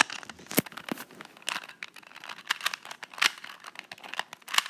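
A ShengShou 2x2x2 speed cube being scrambled by hand: its plastic layers are turned in quick, irregular clicks and clacks, several a second.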